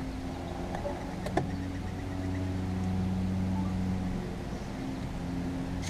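A steady low hum with one sharp click about a second and a half in.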